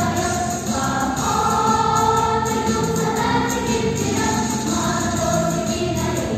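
Children's choir singing a song in unison over instrumental backing, with sustained melodic notes.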